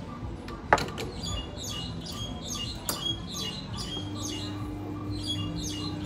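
La Marzocco espresso machine: a sharp metallic clack as the portafilter goes into the group head, a smaller click about two seconds later, then the pump starting with a steady hum about four seconds in as the shot begins. Small birds chirp repeatedly throughout.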